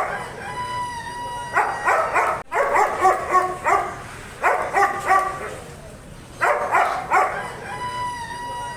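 A dog barking in quick bursts of several barks each, four bursts in all, with a steady high whine held for about a second twice between them.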